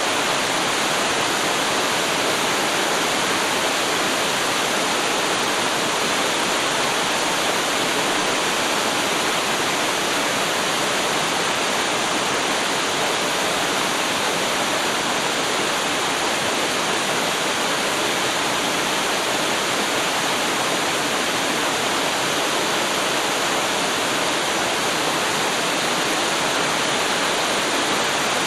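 Waterfall: water pouring and splashing in a steady, dense rush.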